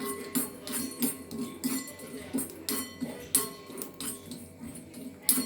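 A spoon scraping and clinking against a pan about three times a second, stirring long pepper as it dry-roasts.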